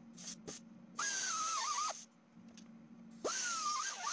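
Pneumatic cutoff tool with a small abrasive wheel cutting the steel wire of a shopping-cart basket: a high whine with air hiss, in two runs, one about a second in and one starting near the end with a rising spin-up. The whine sags in pitch as the wheel bites the wire.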